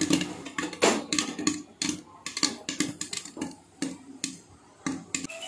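A closed metal pressure cooker full of freshly popped popcorn being shaken by its handle, the popcorn and lid rattling in a quick run of irregular clicks and knocks. The shaking is done to check that no kernels are left unpopped.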